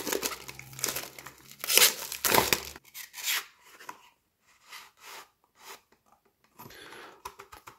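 Clear plastic shrink wrap crackling as it is torn and crumpled off a small cardboard box, in a run of sharp crackles loudest about two seconds in. After that come a few faint scrapes as the inner tray slides out of its cardboard sleeve.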